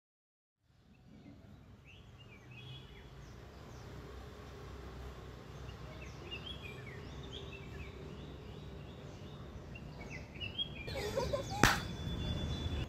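Outdoor ambience fading in after a second of silence: small birds chirping over a low, steady background rumble. Near the end comes a single sharp hand clap, the loudest sound.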